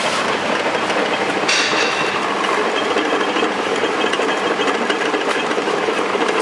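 Vegetable cutting machine running steadily with a continuous mechanical rattle. About a second and a half in the sound turns brighter and hissier.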